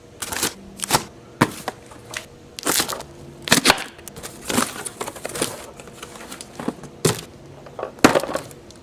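Irregular handling noises: a string of sharp clicks, knocks and crackles, a few a second, with short pauses between.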